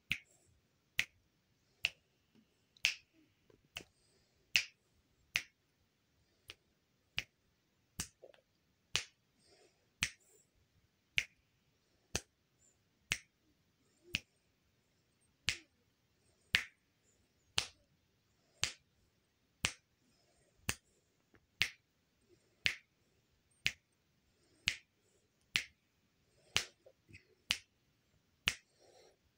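A hand snapping its fingers, one sharp snap about every second in a steady, unhurried rhythm.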